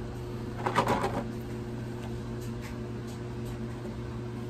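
Cardboard box being opened by hand: a short scraping rustle a little under a second in as the inner tray slides out of its sleeve, then a few faint light taps, over a steady low hum.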